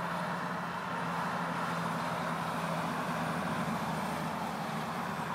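Steady traffic noise from a nearby highway: an even hiss of tyres, with a vehicle's low engine hum growing a little stronger from about a second in and easing near the end.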